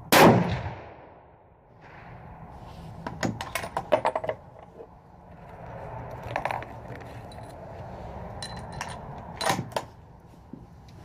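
One shot from a CZ 557 bolt-action rifle in .30-06 Springfield right at the start, ringing off for about a second. Then the metallic clicks and clatter of the bolt being worked come in bunches through the rest, the busiest a few seconds in and again near the end.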